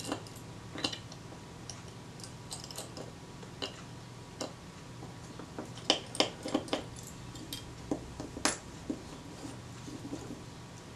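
Light, irregular clicks and taps of a small screwdriver and small metal parts as the screws and support arms are taken off a Kodak Retina IIIc camera's front door, the sharpest click about eight and a half seconds in.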